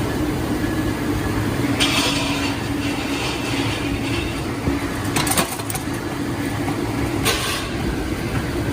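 Factory machinery running with a steady hum, with three short hissing bursts over it.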